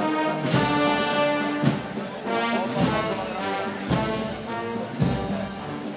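Processional band playing a slow Holy Week march, brass carrying held chords, with a drum stroke about once a second.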